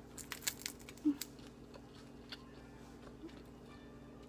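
Crisp crunching while chewing a freshly pan-fried scallion pancake: a cluster of sharp crackles in the first second or so, then only sparse faint clicks.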